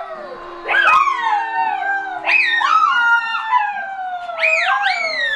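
Several overlapping wolf howls, each rising quickly and then sliding slowly down in pitch, with fresh howls starting about a second in, around two and a half seconds and near the end.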